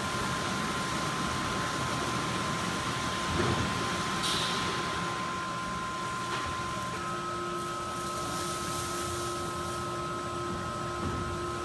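Ryko Soft Gloss Maxx rollover car wash running, its cloth brushes spinning over a car: a steady mechanical rush and swish with a thin motor whine that shifts pitch about seven seconds in.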